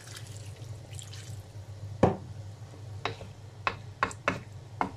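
Water poured from a glass into a pan of vegetable curry, a faint splashing hiss, followed by a wooden spatula stirring and knocking against the pan in about seven sharp clicks, the first the loudest.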